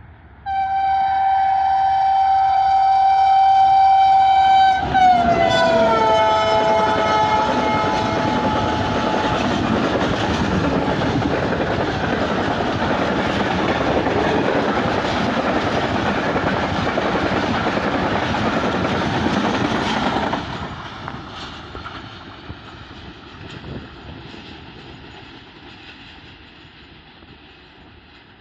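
Pakistan Railways AGE-30 locomotive's horn sounding one long steady blast, which drops in pitch about five seconds in as the locomotive passes and stops about nine seconds in. Then the passenger coaches run past with steady wheel and rail noise, which fades quickly about twenty seconds in as the train pulls away.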